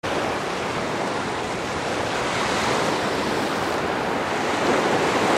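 Light surf washing onto a sandy beach: a steady rush of small waves, swelling a little near the end, with a breeze on the microphone.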